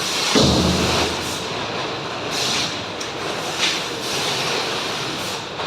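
Continuous industrial machinery noise with a heavy thud about half a second in and short hissing bursts about two and a half and three and a half seconds in.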